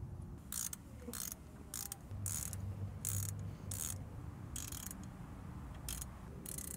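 Ratchet wrench clicking in about ten short bursts, a little over half a second apart, as it is swung back and forth to run in a cover bolt.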